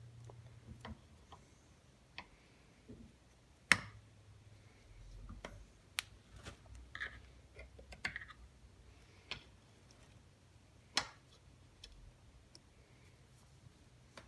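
Scattered sharp metallic clicks and taps from needle-nose pliers gripping and working at a stuck, sheared impeller drive pin in an outboard lower unit, with soft handling rustles between.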